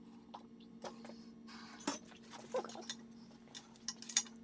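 Metal clinks, a rattle and a few sharp clicks from a wrench tightening an engine mount bolt through an engine stand adapter plate into a rotary engine's iron side housing, most of the clicks near the end. A faint steady hum runs underneath.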